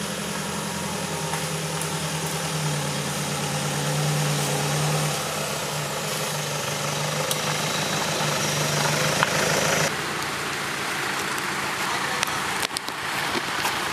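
Off-road 4x4's engine running at low revs, rising slightly a couple of times. About ten seconds in, the engine tone drops away abruptly, leaving a rougher noise with a few knocks.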